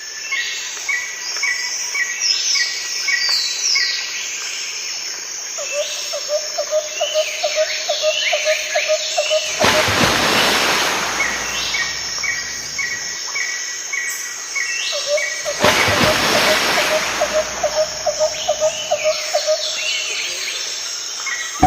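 Birds chirping and trilling, with several overlapping calls and a rapid lower trill. Two swells of rushing noise come about ten and sixteen seconds in.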